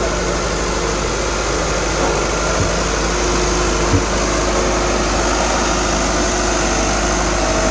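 Diesel engine of a CASE single-drum road roller running steadily up close, with a short knock about four seconds in.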